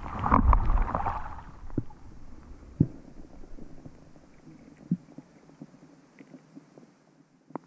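Muffled underwater sound heard through a GoPro's waterproof housing: a loud rumbling slosh in the first second, then a faint murmur with a few scattered knocks and clicks.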